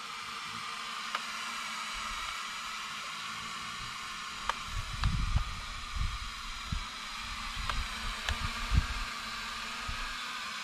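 Small toy drone's propellers whirring with a steady, slightly wavering whine, while gusts of wind rumble on the microphone about halfway through.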